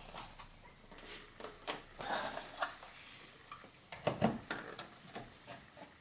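Scattered knocks, creaks and scrapes of plastic as the stiff lower half of a Ford Focus Mk III airbox is tugged and worked loose from its rubber mounts. The loudest knocks come about two and four seconds in.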